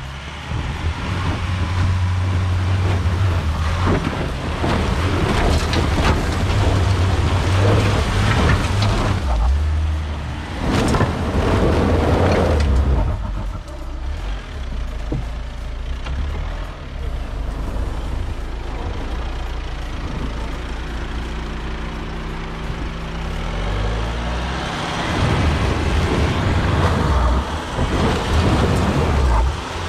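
VW Amarok's 3.0 V6 diesel engine revving hard under load up a loose rocky slope, rising and falling in surges as the tyres spin and grind on the stones. There is a loud burst of crunching gravel about a third of the way in, and a steadier engine note near the end.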